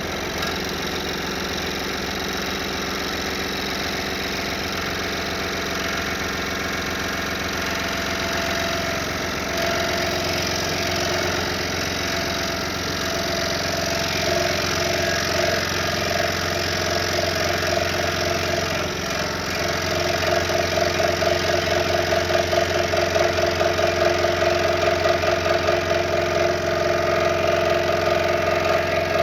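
Scroll saw running, its reciprocating blade cutting through a stack of maple, cherry and walnut panels. A steady motor hum underlies it, and from about twenty seconds in the cutting turns louder with a rapid, even pulsing.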